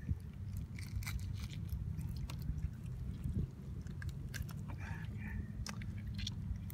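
A brown trout being gutted by hand: wet squelching and small crackly clicks as the innards are pulled and torn from the body cavity, over a steady low rumble.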